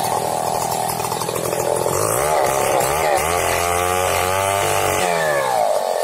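Two-stroke chainsaw running at high revs as its long bar cuts through a large tree trunk. Its pitch rises and falls repeatedly in the middle, then sinks near the end.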